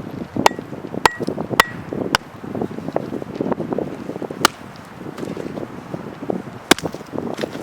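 Wood being chopped with a hatchet or axe: sharp, irregularly spaced blows, several of them a second or more apart, over a rough rustling background.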